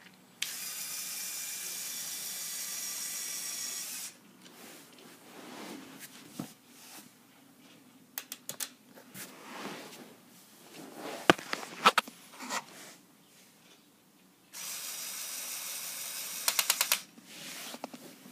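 Lego Power Functions electric motor running through plastic gearing with a steady whir, twice for a few seconds at a time. The second run ends with a quick string of sharp clicks, and there are scattered plastic clicks and knocks between the runs.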